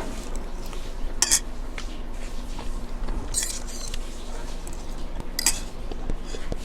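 Eating utensil scraping and clinking against a dish of food three times, about two seconds apart, over a steady low hum.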